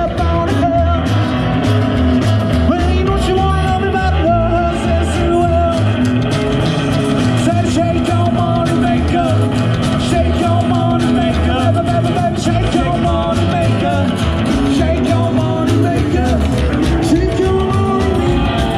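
Live rock-and-roll band playing: drum kit, electric and acoustic guitars and upright double bass, with a lead singer.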